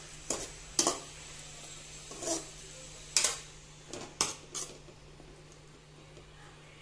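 A perforated metal spoon knocking and scraping against a metal kadai while stirring chicken pieces in water, about six clinks in the first five seconds and quieter after, over a low steady hum.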